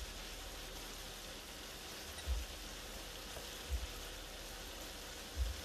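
Sliced sausage sizzling in a frying pan on an electric hot plate, a steady frying hiss. Three dull low bumps come about two, three and a half, and five seconds in.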